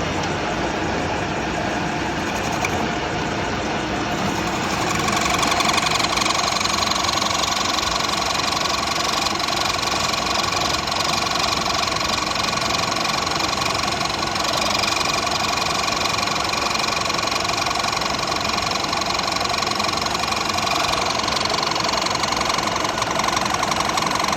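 Metal lathe running while turning a shaft, a steady machine hum. About five seconds in, a steady high whine joins it and holds.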